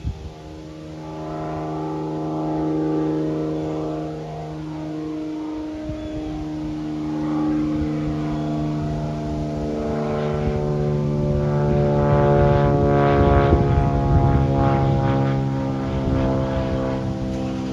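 Light propeller aircraft flying overhead: a steady engine and propeller drone that grows louder toward the middle and sinks slightly in pitch as it passes.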